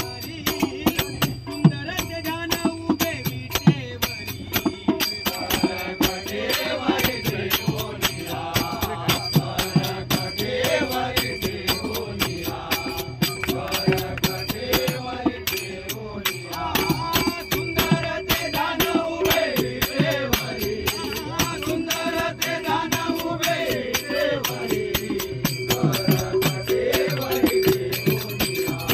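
Marathi devotional bhajan: a singer's voice carrying an abhang melody over a steady held drone, with hand cymbals and a drum keeping a fast, even beat.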